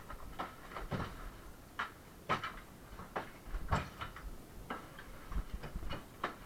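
Irregular knocks and clatter of broken partition-wall material and rubble being struck and shifted, one or two a second and uneven in strength.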